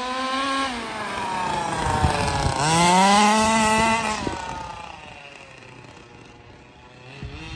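Two-stroke gas engine of a 1/5-scale HPI Baja 5B RC buggy revving as it drives. The pitch climbs, drops, climbs higher about two and a half seconds in, then falls to a low idle before picking up again near the end. The engine is still bogging a little on acceleration.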